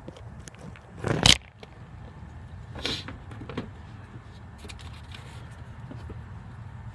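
Handling noises: a loud, short scraping rustle about a second in, a softer one near three seconds, and a few light clicks over a steady low hum.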